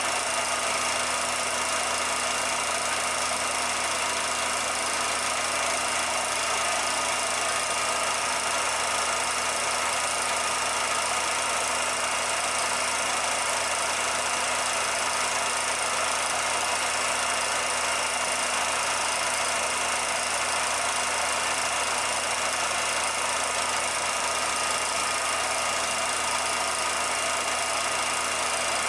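16mm film projector running: a steady mechanical whir and hiss with a few fixed hums, unchanged throughout. This is the sound of the film being run, not of the train.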